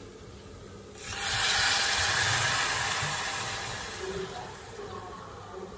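Water poured from a bottle into a saucepan of hot, dry-toasted rice, hissing loudly as it hits the hot pan about a second in and then slowly dying down. This is the liquid going in to cook the rice.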